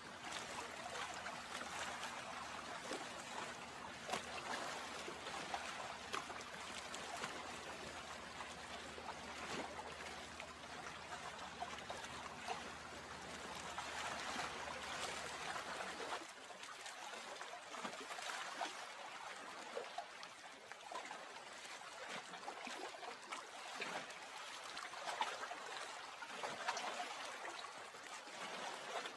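Lake water trickling gently, a steady even wash with no single events standing out. A faint low hum underneath cuts off about sixteen seconds in.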